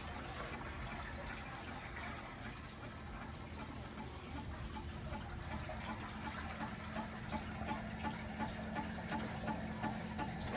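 Steady hiss of hard rain. From about six seconds in, a low hum joins it, with soft ticks about twice a second.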